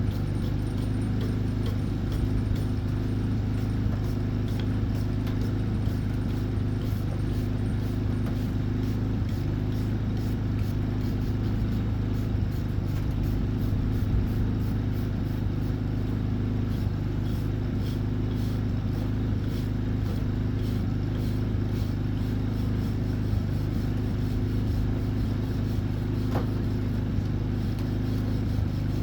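Flux-core wire-feed welder running while welding a stacked steel-and-copper billet: a steady low hum with faint irregular crackling over it.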